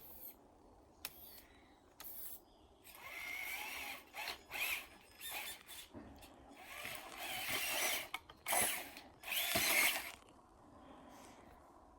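Traxxas TRX-4 RC crawler's electric motor and geared drivetrain whirring in several short bursts of throttle, after a few sharp clicks in the first couple of seconds.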